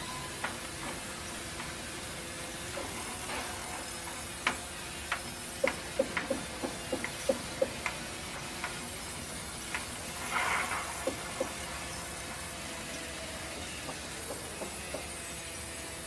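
Vertical band sawmill running with a steady hiss as its blade saws through a log. A run of sharp knocks and clicks comes between about four and eight seconds in, and a short burst of noise comes about ten seconds in.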